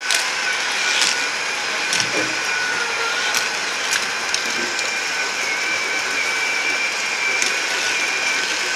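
Battery-powered Hot Wheels track booster motor running, a steady whir with a constant high whine, and a few sharp clicks scattered through it.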